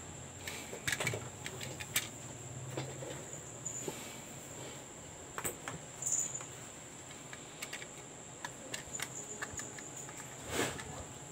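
Clear plastic SJCAM action-camera waterproof housing being handled: scattered light clicks and knocks as it is turned over, set down on the desk and picked up again, the loudest knock near the end. A faint steady high-pitched whine sits underneath.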